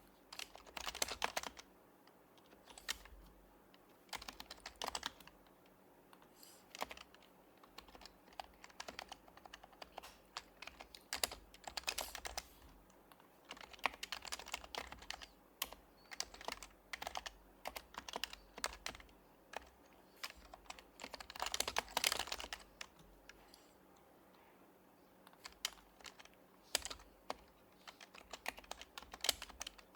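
Typing on an HHKB Professional Hybrid Type-S keyboard, its silenced Topre keys giving soft, muted clicks in uneven bursts with short pauses between them.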